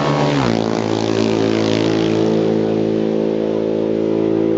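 Racing motorcycle engine at high revs going by on the road course. Its pitch drops about half a second in, then holds a steady, loud note.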